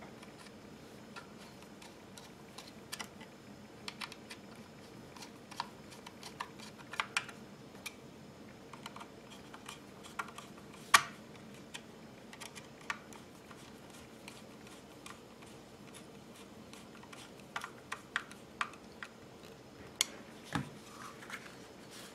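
Scattered light clicks and taps of metal and polymer gun parts being handled and worked with a small screwdriver on a BRS-99 9mm carbine during reassembly, with one sharp click about halfway through and another near the end.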